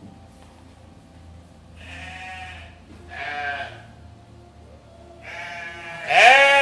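Goats bleating: a few separate calls that each rise and fall in pitch. The middle ones are fainter, and a loud bleat comes near the end.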